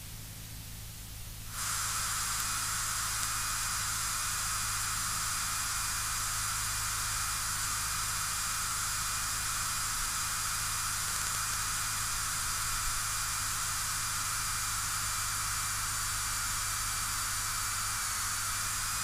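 Steady hiss and static on an aircraft's radio and intercom audio feed between transmissions, with a faint low hum underneath. The hiss comes up about a second and a half in and then holds even.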